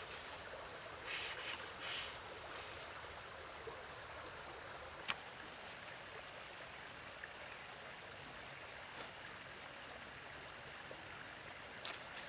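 A steady outdoor hiss, with brief rustles of dry straw thatch being handled about one and two seconds in. A single sharp click comes about five seconds in.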